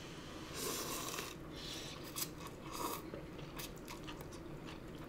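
Two people eating instant jjajang cup noodles with chopsticks: a long noodle slurp about half a second in and a shorter one near two seconds, with quiet chewing and small clicks around them.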